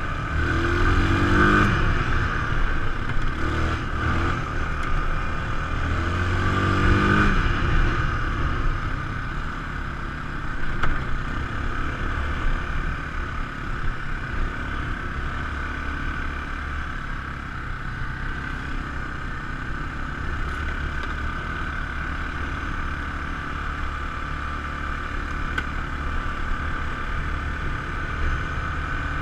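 ATV engine running while being ridden, revving up twice, about a second in and again around six seconds in, then holding a steady pace.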